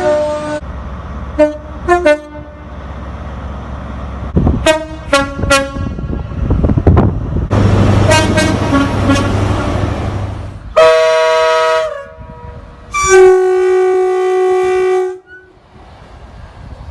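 Train horns sounding in a series: a held note cuts off about half a second in, short toots follow around two seconds and five seconds in, then two held blasts, about a second long near eleven seconds in and about two seconds long from thirteen seconds in, with train running noise between.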